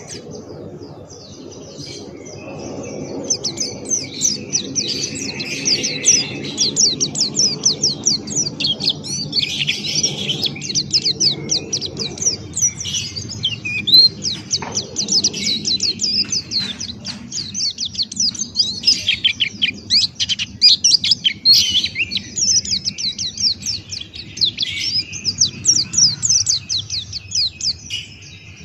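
A white-eye (pleci Buxtoni) singing a long, fast chattering song of quick high chirps, with a low steady hum beneath.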